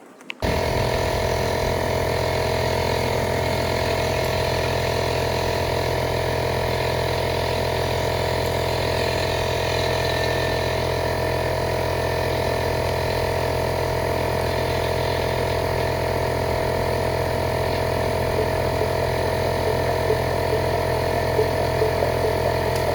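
A motor-driven machine running at a steady, unchanging speed, starting and stopping abruptly.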